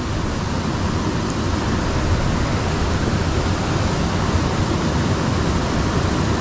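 Steady rushing noise of flowing water in a small ditch, even and unbroken.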